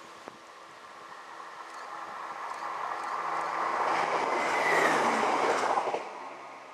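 CrossCountry Class 170 Turbostar diesel multiple unit passing at speed. It grows louder as it approaches and is loudest as it goes by. The noise drops away suddenly about six seconds in as the rear of the train clears.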